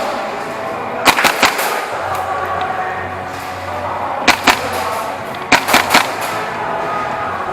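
Airsoft guns firing short bursts of sharp cracks: three or four shots about a second in, two shots past the middle and three more soon after. A steady bed of background music runs underneath.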